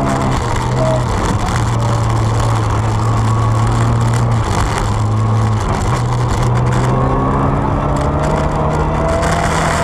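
Rally car engine heard from inside the cabin, running hard at stage speed, its note breaking off briefly about a second in and twice near the middle, then climbing again near the end, over a steady rumble of tyres on the snowy road.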